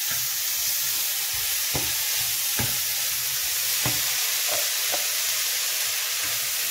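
Goat meat, onion and pepper mix sizzling steadily as it fries in oil in a frying pan, with a few light knocks of a utensil against the pan as it is stirred.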